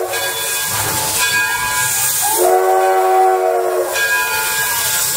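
Steam whistle of the Edison steam locomotive giving one long blast, starting about two and a half seconds in and lasting about a second and a half. It sounds over the steady hiss of steam from the moving locomotive.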